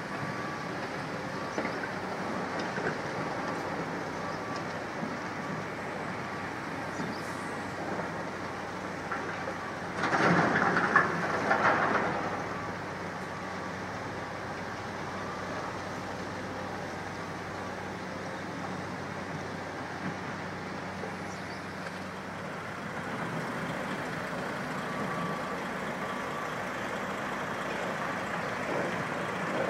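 Heavy demolition machinery at work: the steady running of tracked excavators and a tipper lorry. About ten seconds in comes a louder, denser burst lasting about two seconds.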